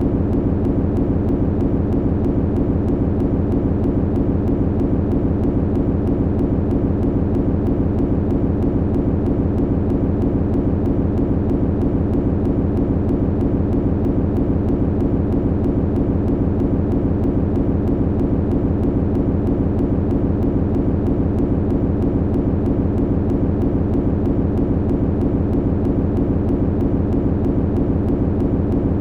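Machinery humming steadily, low-pitched, with a fast, even pulse running through the hum.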